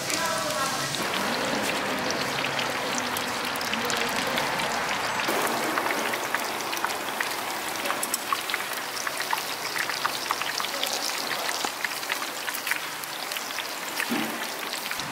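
Hot oil sizzling and crackling in a street-stall deep fryer: a dense, steady crackle.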